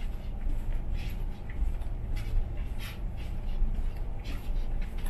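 Soft, irregular scuffing steps and rustling of someone walking along a carpeted ship corridor, over a steady low rumble.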